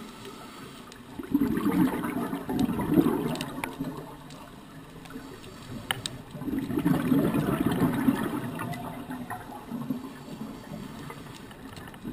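Scuba diver's exhaled bubbles gurgling out of the regulator in two long breaths, each lasting two to three seconds, heard muffled through the underwater camera housing.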